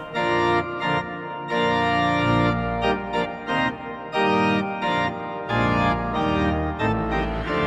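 Background music: a tune of held, organ-like notes over a bass line, the notes changing every half second or so.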